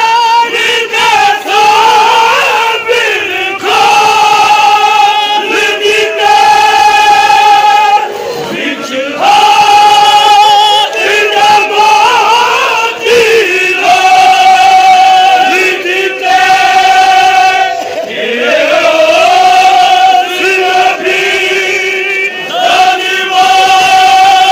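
A crowd of men loudly chanting a noha, a Shia lament, in unison, singing long held notes phrase after phrase with brief breaks between phrases.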